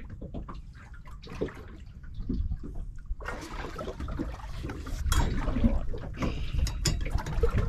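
Sea water lapping and splashing against the hull of a small boat over a steady low rumble; about three seconds in a louder hiss of splashing comes in.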